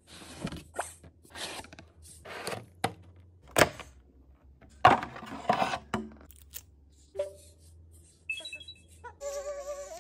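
Packaging and handling noises, rustling and scraping with a few sharp knocks. Near the end an Eilik desk robot gives a few short high electronic beeps, then a warbling, pitched robot voice like a cry.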